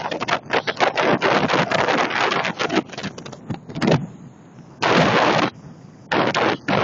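Storm noise from strong wind and rough sea, loud and choppy, coming in bursts with short lulls between them, the longest lull about two thirds of the way through.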